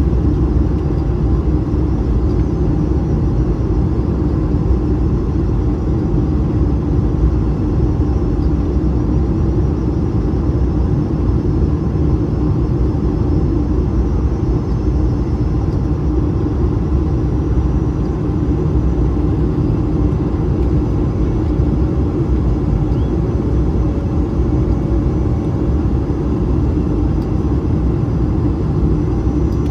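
Steady cabin noise inside an Airbus A220 in flight: a deep, even rumble of the geared turbofan engines and airflow over the fuselage, with a faint hum held underneath and no sudden knocks.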